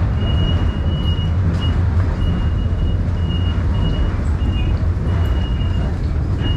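Busy underground railway station concourse: a steady low rumble under the hubbub of a crowd walking, with a high electronic beep sounding on and off about twice a second.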